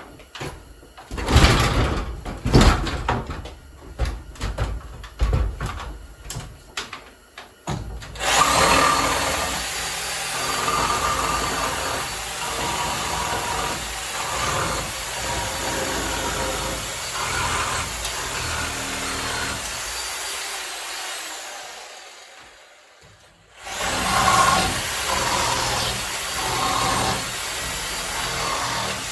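A few seconds of knocks and bangs, then a Harbor Freight reciprocating saw cutting off old nails in wooden joists. It runs steadily for about thirteen seconds, winds down and stops, and starts cutting again about two seconds later.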